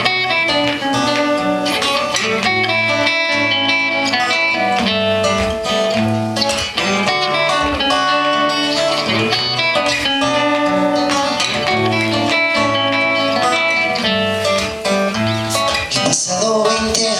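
Live band playing the instrumental guitar intro of a song, without vocals.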